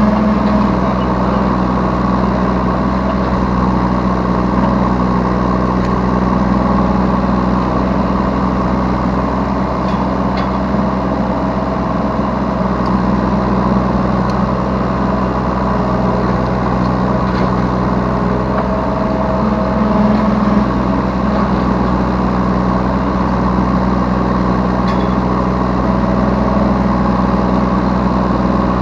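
Yanmar B3Σ mini excavator's diesel engine running steadily with its hydraulics working, heard from the operator's seat.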